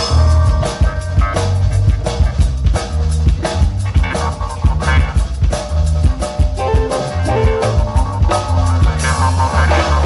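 Live rock band playing an instrumental passage: a busy drum-kit beat with electric guitar, bass guitar and keyboards.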